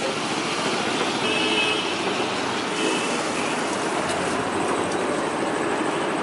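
Steady roadside traffic noise from passing vehicles, with a short horn-like toot a little over a second in and a briefer one near three seconds.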